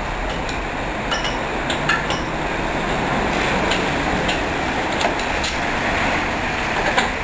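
Irregular metallic clinks and clanks from the coupling gear between a replica steam-style locomotive and its passenger carriage as it is worked by hand, over a steady background hiss.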